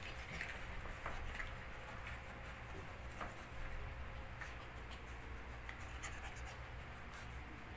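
Belgian shepherd puppies scuffling in play, their claws clicking and scratching irregularly on a tiled floor.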